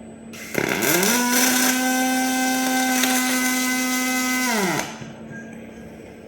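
A machine motor spins up with a rising whine, runs steady with a loud hiss for about four seconds, then winds down and stops, from a robotic MIG welding setup.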